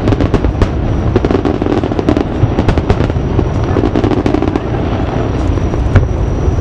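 Aerial fireworks shells bursting over water: a quick run of bangs and crackling, with one loud bang about six seconds in.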